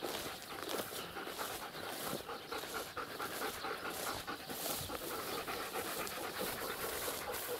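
German Shepherd dogs panting hard and fast, about three to four breaths a second, hot from training exercise.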